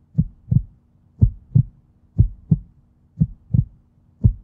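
A slow heartbeat: paired low thumps, lub-dub, about once a second, five beats in all, over a faint steady hum.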